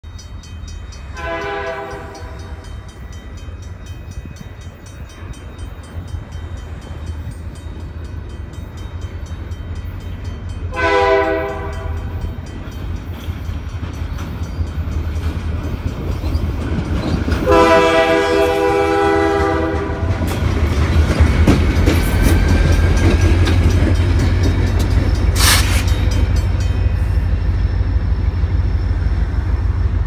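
CP Rail SD40-2 diesel locomotive's air horn sounding three blasts: two short ones about ten seconds apart, then a longer one of about two and a half seconds. Under the horn runs the steady low rumble of its EMD 645 V16 two-stroke diesel, growing louder as it draws near. A brief sharp screech rings out near the end.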